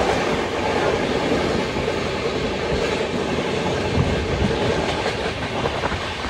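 Passenger train running, heard from inside the moving coach at an open door or window: a steady rumble of coaches and wheels on rail, with a few sharp wheel clacks over rail joints.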